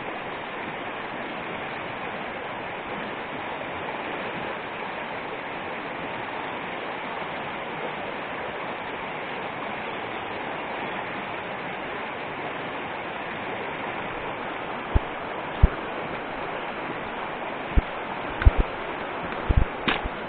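Shallow mountain river rushing over rocks and small rapids, a steady rush of water. Several short, sharp knocks sound over the last five seconds, louder than the water.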